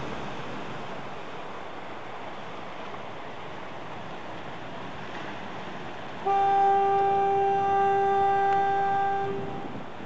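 Steady rushing wind and surf noise, then about six seconds in a horn sounds one loud, steady note for about three seconds before fading out.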